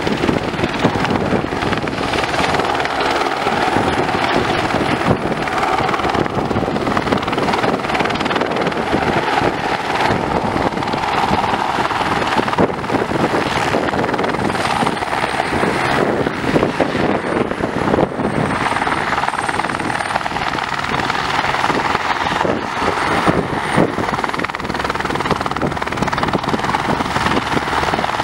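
Eurocopter AS350B3 single-turbine helicopter hovering close by: a steady, dense rotor beat with a faint high turbine whine over it.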